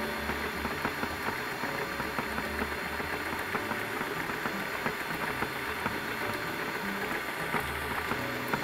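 Electric stand mixer running steadily, its beater turning through creamed butter and sugar as eggs are added.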